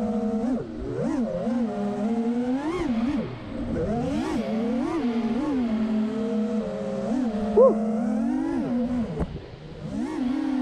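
Quadcopter with iFlight XING2 2306 1755KV brushless motors on 6S, spinning T-Motor T5143S props. It whines, the pitch rising and falling constantly with the throttle. The sound drops away briefly a few times and gives one sharp, loud rising-and-falling burst a little before 8 seconds in.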